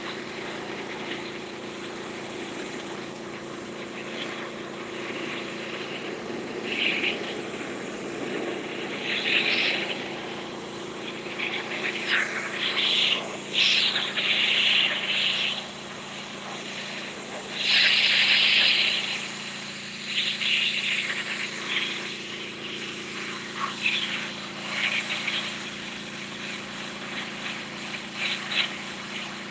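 Simpson 4200 PSI gas pressure washer's engine running steadily, with repeated bursts of loud hissing spray as the high-pressure jet blasts algae off concrete steps. The loudest bursts come in the middle of the stretch.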